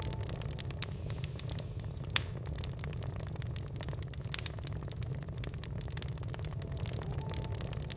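Wood fire crackling in a fireplace: irregular snaps and pops over a steady low rumble, with one sharper pop about two seconds in.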